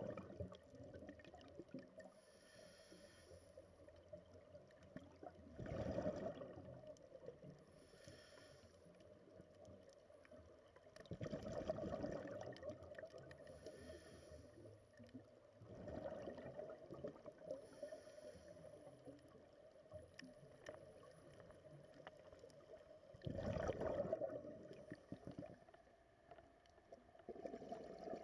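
Scuba diver breathing through a regulator, heard underwater: a faint hiss on each inhale, then a rush of exhaled bubbles. The cycle repeats every five or six seconds, with about five bubble bursts.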